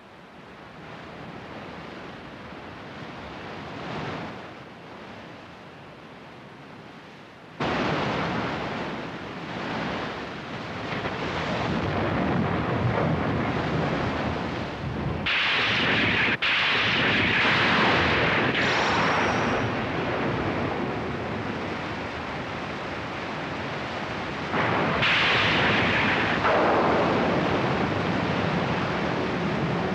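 Storm sound effects: wind and heavy surf rushing, low at first, then growing suddenly louder about a quarter of the way in, with hissing surges of rain and spray, and a sharp click near the middle.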